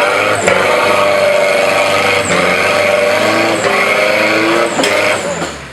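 An off-road 4x4's engine revving hard under load on a trail obstacle, its pitch rising and falling, with a few sharp knocks from the vehicle along the way.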